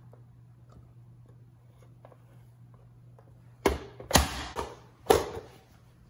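Push-down plastic vegetable chopper slammed shut three times, forcing radishes through its grid blade: three hard clacks within about a second and a half, past the middle, each with a short rattle. Before them there are only a few faint clicks over a low steady hum.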